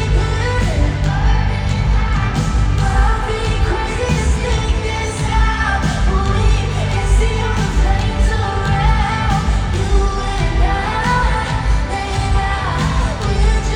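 Pop song performed live: a woman singing a sustained, wavering melody over a heavy bass-driven backing.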